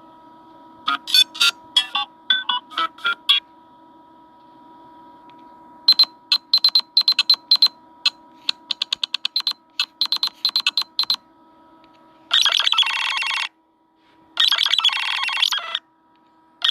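Nothing Phone (1) ringtones played one after another. First comes a short run of sharp plucked notes, then a faster run of rapid ticking notes. Near the end, long buzzy tones repeat about every two seconds.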